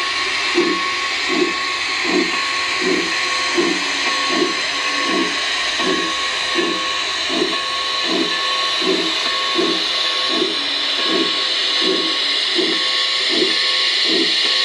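A G-scale Shay steam locomotive model's DCC sound decoder plays a steady steam hiss through the model's speaker, with a slow, even chuff about every three-quarters of a second and a thin steady tone behind it.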